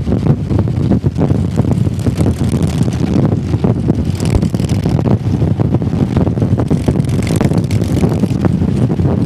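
Motorcycle engine and exhaust running steadily under way, with a rapid even pulse, and wind buffeting the microphone.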